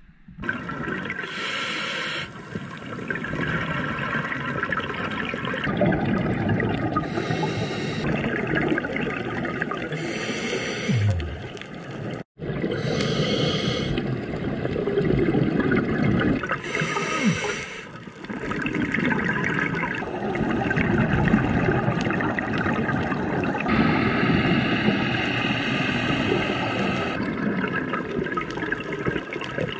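Underwater bubbling and gurgling of scuba divers' exhaled air, with a hissing rush returning every few seconds, heard through a camera's underwater housing. The sound drops out for an instant about twelve seconds in.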